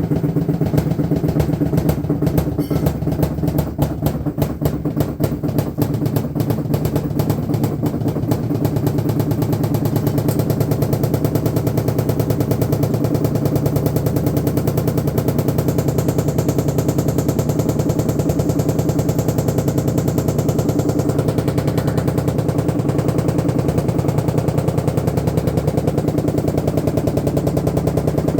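LG washing machine running with a fast, even knocking rattle over a steady low hum, a noise that is getting worse.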